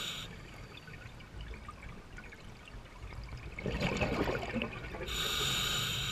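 Scuba regulator breathing heard underwater: a short hiss of inhalation at the very start, a gurgling burst of exhaust bubbles a little past the middle, and another inhalation hiss in the last second.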